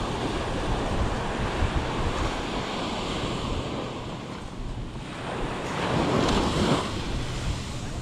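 Small ocean waves breaking and washing up the sand at the shoreline, one wave swelling louder about six seconds in. Wind buffets the microphone underneath.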